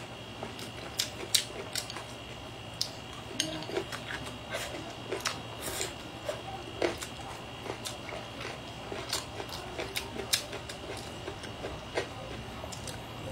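Close-up eating sounds: chewing with wet mouth clicks and smacks as spicy braised loach is eaten. Short, sharp clicks come irregularly, about one or two a second.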